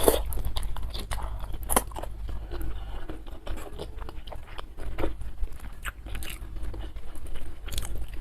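Close-miked chewing and biting of food, with irregular crisp crunches and clicks.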